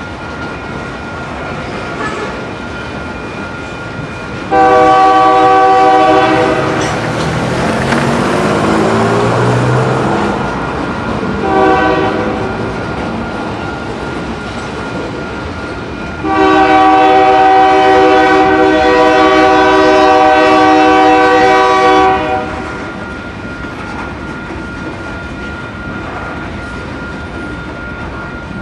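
Locomotive air horn sounding a chord in a long blast, a short blast and a second long blast over the steady rumble of a train rolling past, the pattern of a grade-crossing warning.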